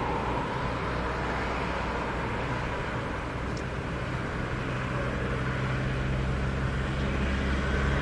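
Steady road-traffic noise, with a vehicle engine's low hum building through the second half.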